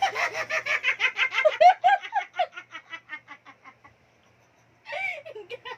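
A person laughing hard in quick, rapid pulses, trailing off after about three seconds; another burst of laughter starts near the end.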